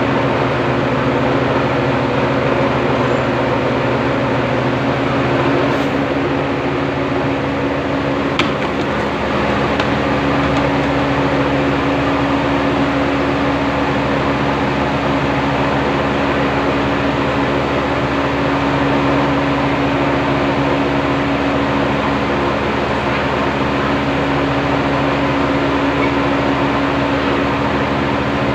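Small rice-milling machine running steadily while milling rice: a constant mechanical drone with a steady hum that does not change pitch.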